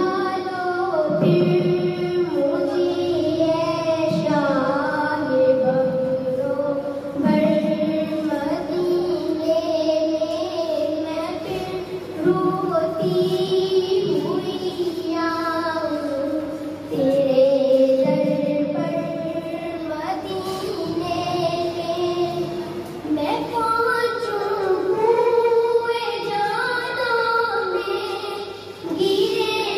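A girl singing a naat solo through a microphone, in long, held melodic phrases with short breaks between them every few seconds.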